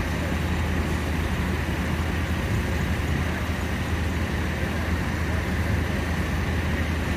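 Large farm tractor diesel engines running steadily with a deep, even hum, the nearest a Claas tractor moving in the mud.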